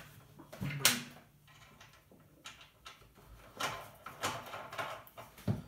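Bosch PBD 40 drill press's head being unclamped and lowered on its column: a knock about a second in, short metal scraping and clunks a few seconds later, and a click near the end.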